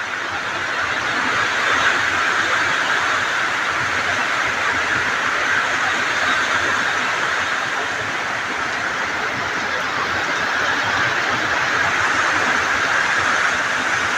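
Heavy summer-storm rain pouring down steadily, a loud even hiss.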